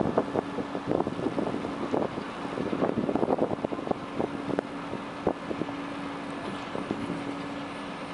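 Steady machinery hum from a moored concrete plant ship, with wind buffeting the microphone. Uneven thumps and rattles crowd the first half and thin out after about five seconds.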